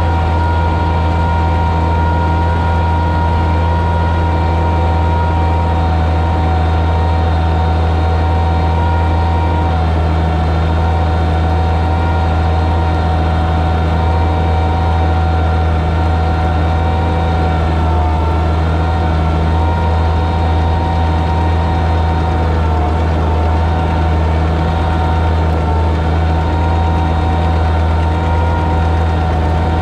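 Oliver 77 tractor's six-cylinder engine running at a steady, even speed under load while pulling a plow.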